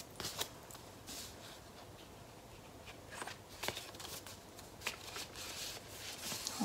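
Faint paper rustling with a few light scattered ticks as a card envelope is opened and the papers inside are handled.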